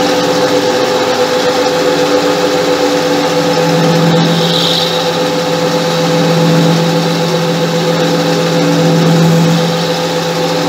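Hobby lathe running with a 12 mm end mill in the chuck, milling a deep 7–8 mm cut in a workpiece held in a vice on the vertical slide: a steady motor whine, joined by a lower, steady cutting hum from about three and a half seconds in until near the end. The cut is smooth, 'like butter'.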